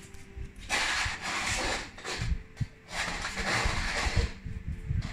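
Two puppies scuffling and playing on a tile floor: bursts of scrabbling and rubbing noise with scattered low thumps.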